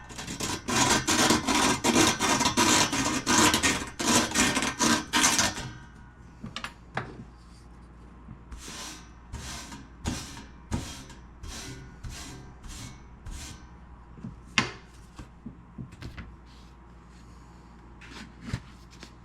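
Razor blade scraping rust off a metal stereo cabinet: hard, rapid strokes under heavy pressure for about the first five seconds, then lighter separate scrapes about one or two a second.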